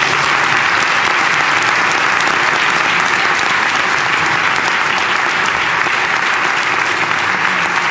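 An audience of a few hundred people applauding steadily, a dense mass of hand claps.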